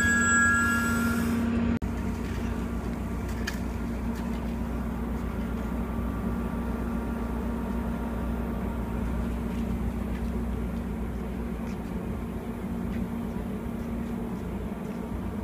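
Caltrain bilevel passenger cars rolling past at close range, a steady low rumble of wheels on the rails with a faint hum. A held tone fades out in the first two seconds, then the sound cuts abruptly.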